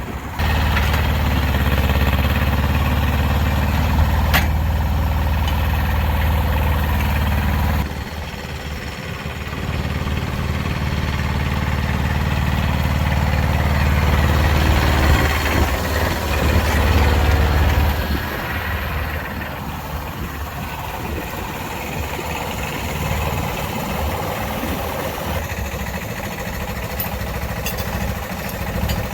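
A vehicle engine running steadily. It cuts off abruptly about eight seconds in and comes back a couple of seconds later. Over the last ten seconds it gives way to a fainter, rougher rumble.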